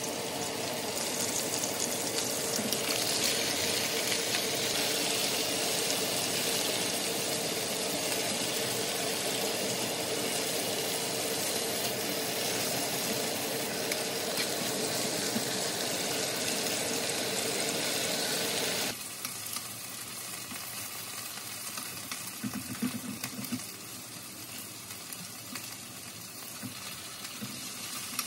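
Diced chicken breast sizzling steadily in oil in a nonstick frying pan. The sizzle stops abruptly about two-thirds of the way through, leaving a quieter background with a few light clicks.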